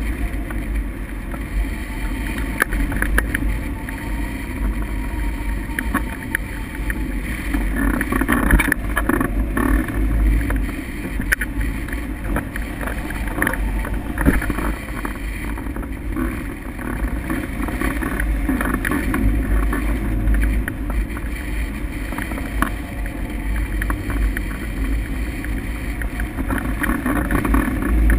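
Airflow rushing and buffeting over a camera mounted on a hang glider climbing on tow, a steady low rumble with gusty rises and falls.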